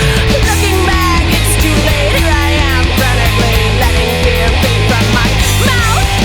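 Loud rock music from a full band: heavy sustained bass and drums, with a lead melody sliding up and down in pitch over the top.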